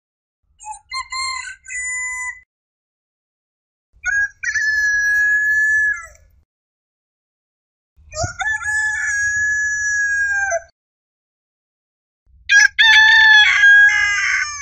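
Roosters crowing: four separate cock-a-doodle-doo crows of about two seconds each, with silence between them. The first is shorter and fainter, and the last is the loudest.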